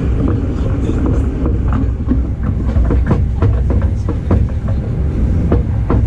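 Electric local train running along the track, heard from inside the passenger car: a steady low rumble with many irregular sharp clicks and knocks from the wheels on the rails, coming thicker after about two seconds.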